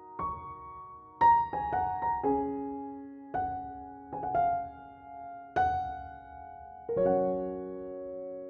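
Background piano music: slow, gentle notes and chords, each struck and left to ring, ending on a held chord.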